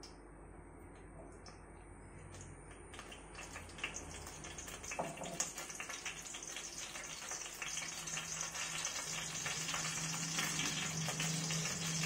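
Mustard seeds spluttering in hot oil in a kadai: a sizzle full of small crackling pops that starts sparse and grows denser and louder from about halfway, as the seeds begin to burst.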